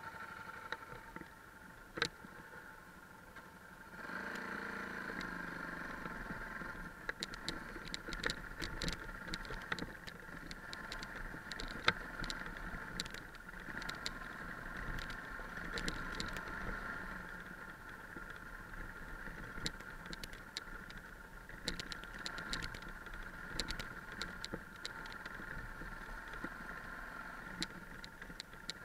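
Yamaha 660 single-cylinder dual-sport motorcycle engine, quiet at first, then louder and steady from about four seconds in as the bike rides off down a rocky trail. Many sharp clicks and knocks from the rough ground run through it.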